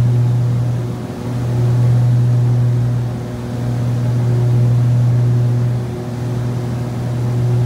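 Twin piston engines and propellers of a Piper PA-31 Navajo heard inside the cabin: a steady, loud low drone that swells and fades about every two seconds, the beat of two propellers turning slightly out of sync.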